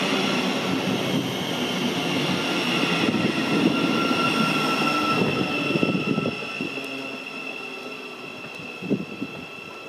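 Thameslink Class 700 electric multiple unit running close past the platform: wheel-on-rail rumble with a steady high electric whine from its traction equipment. About six seconds in the rumble falls away, leaving a quieter whine, with a short knock near the end.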